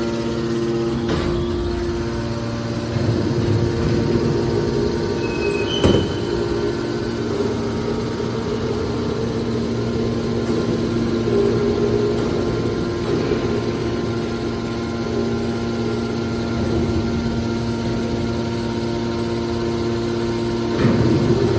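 Scrap metal baler's hydraulic power unit running with a steady, even hum, and a single sharp metallic click about six seconds in.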